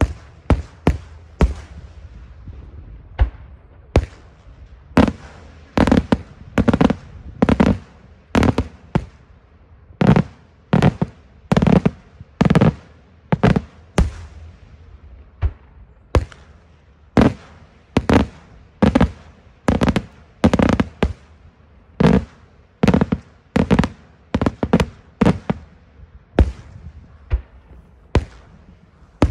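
Daytime fireworks display: aerial shells bursting overhead in a steady barrage of loud bangs, about one or two a second, some coming in quick doubles and triples.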